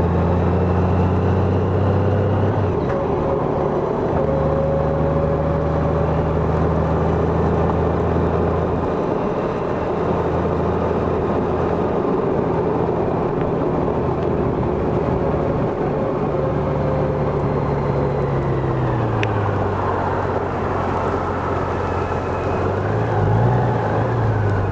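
Honda Gold Wing motorcycle engine running steadily while cruising, under a haze of road and wind noise. Its pitch falls about three-quarters of the way through as it slows, then dips and rises again near the end.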